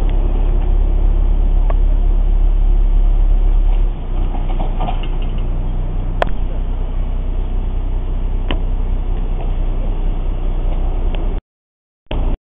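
Small narrow-gauge diesel locomotive's engine running steadily at low speed, its note dropping in level about four seconds in, with a couple of sharp clicks from the running gear on the track. The sound cuts out abruptly near the end.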